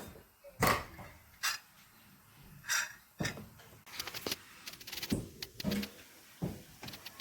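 Scattered light knocks and clicks, a dozen or so short separate hits spread over several seconds, some with a brief ring.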